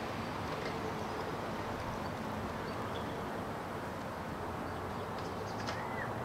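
Steady outdoor background ambience, a low even rumble, with a few faint short high chirps scattered through it and one brief chirp shortly before the end.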